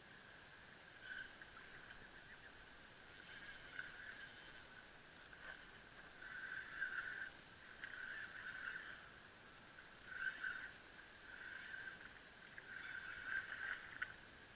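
Spinning reel being cranked in short bursts during a lure retrieve: a faint whirring that starts and stops every second or two. A small splash on the water near the end.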